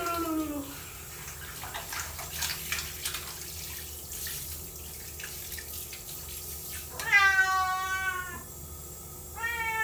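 A domestic cat, frightened of water, meowing during its bath: a short falling meow at the start, one long meow about seven seconds in and another just before the end. Water from a hand shower sprays and splashes on the cat and the tiled floor in the first few seconds.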